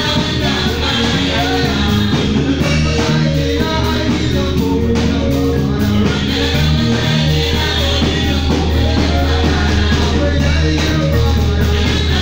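Loud church band music amplified through a PA loudspeaker: singing over a steady bass line and drums, with no break.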